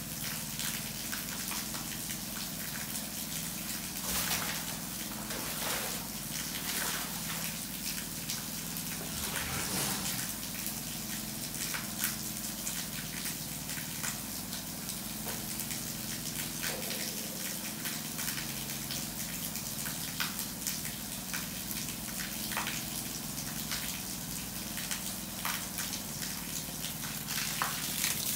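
A jet of water from a hose spraying onto a wet concrete floor, a steady hissing splash with irregular spatters, over a steady low hum.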